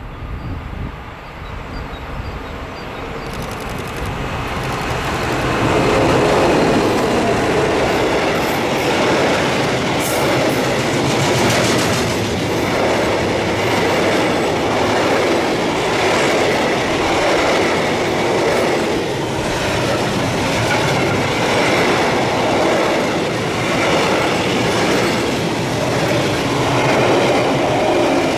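Freight train of loaded log wagons, hauled by an electric locomotive, passing close by. It grows louder over the first five or six seconds as it approaches, then the wagons roll past with a steady, rhythmic clatter of wheels over the rail joints.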